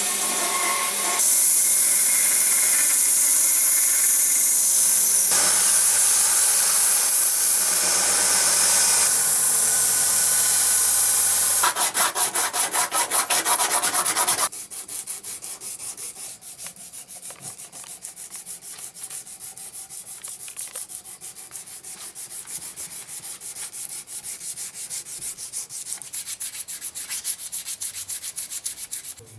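Knife handle scales being sanded to shape. A loud, steady sanding noise runs for about the first half, in several abrupt segments. It then gives way to quieter, regular back-and-forth sanding strokes.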